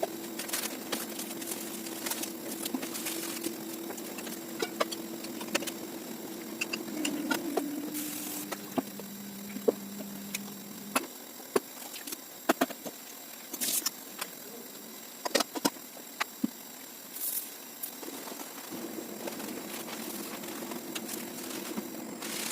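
Scattered knocks, clicks and clatters of things being handled while a kitchen is cleaned, over a steady low hum. About nine seconds in the hum drops in pitch, about eleven seconds in it stops, and near the end it returns.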